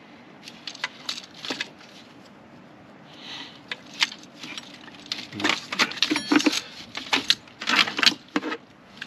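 Plastic hose clips, hoses and the EVAP purge valve in a car's engine bay clicking and rattling as a gloved hand works them loose. A few scattered clicks at first, then a busy run of clicks and rattles in the second half.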